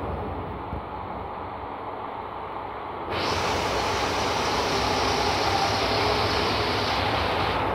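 Shikoku Mannaka Sennen Monogatari, a KiHa 185 diesel railcar train, moving past close by: a steady rumble of engine and wheels that grows louder and hissier about three seconds in.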